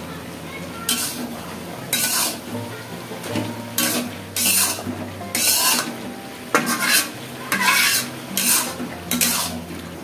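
Metal spatula scraping and stirring chopped bottle gourd in an aluminium kadai: about ten short scrapes against the pan, roughly one a second.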